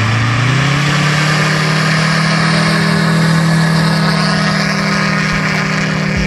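Magni gyroplane's engine and pusher propeller throttling up for the takeoff roll: the engine pitch rises within the first second, then holds steady at high power.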